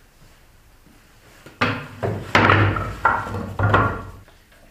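Armful of scrap pallet-wood boards set down onto a plywood worktable: a clatter of about four heavy wood-on-wood knocks, starting about a second and a half in.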